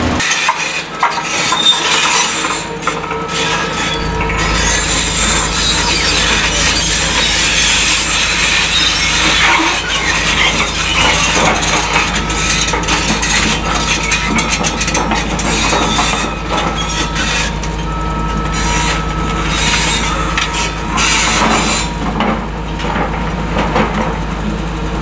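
Caterpillar excavator working through demolition rubble: continuous scraping, crunching and clattering of bucket and debris, with brief metallic squeals now and then and the diesel engine running steadily underneath.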